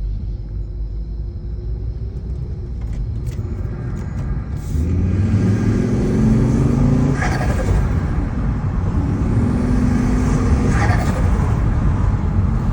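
Volvo S60 T5's turbocharged engine pulling hard twice, its note rising each time, then turbo flutter as the throttle is lifted: the turbo compressor surges against the closed throttle.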